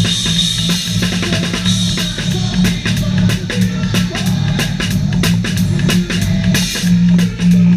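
Live band playing with the drum kit loud in the mix: rapid kick and snare hits over a sustained low bass line, the strokes coming thicker from about two and a half seconds in.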